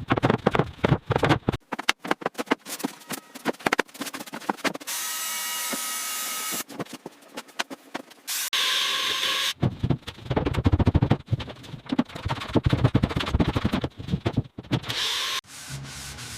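Build-montage tool sounds: rapid knocking and tapping, broken by a steady power-tool whirr about a third of the way in and a shorter, higher whine just past halfway, then more dense knocking.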